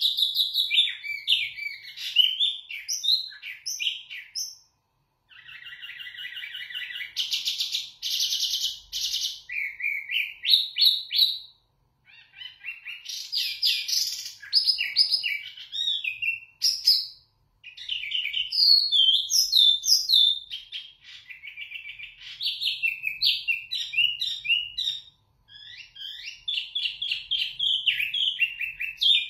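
A caged wambi mini singing loud, clear, varied phrases of quick whistled notes, broken by short pauses. About six to ten seconds in comes a stretch of fast, buzzy rattling notes.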